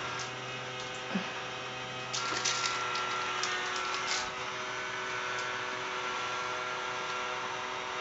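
Small electric motor of a cat tree's motorized wand toy humming steadily as it turns, switched to run all the time. A few brief crinkly rustles come from the foil-ball attachment as a cat bats and bites at it.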